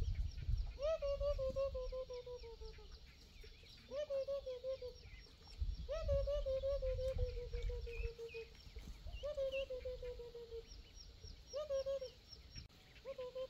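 Poultry calling over and over: long calls about every two seconds, each rising briefly and then sliding slowly down in pitch, with faint high peeping behind.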